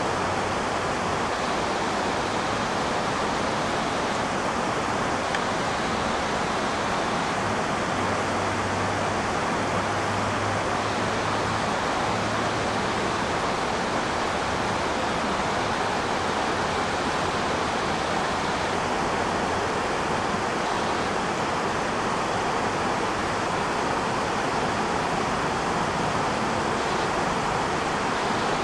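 Steady, even hiss that holds at one level throughout, with no hoofbeats or other distinct sounds standing out.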